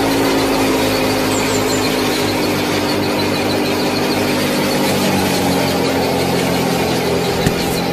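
Small electric motor of a homemade model tractor running with a steady whine, its pitch settling a little lower about halfway through.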